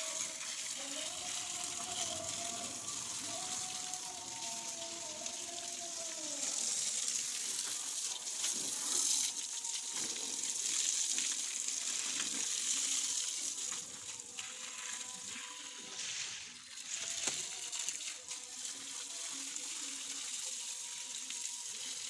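Garden hose spraying water in a steady hiss, the stream splashing onto the steel bucket and boom of a JCB backhoe.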